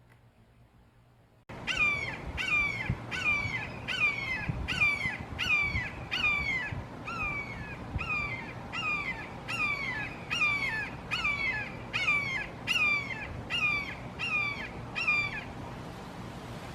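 Red-shouldered hawk giving a long, rapid series of loud, downslurred "kee-ah" calls, about one and a half a second, starting after a brief near-silent moment and stopping shortly before the end.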